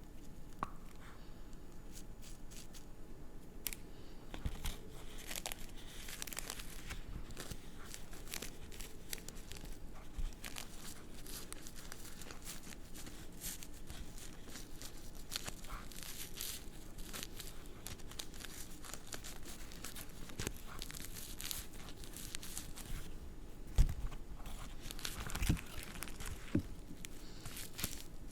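Cigarette paper and loose tobacco rustling and crinkling as a cigarette is rolled by hand, a continuous stream of small crackles, with a few sharper taps near the end.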